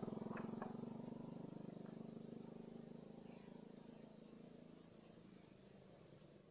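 A small motorcycle engine running and fading steadily as it moves away, over a steady high insect drone.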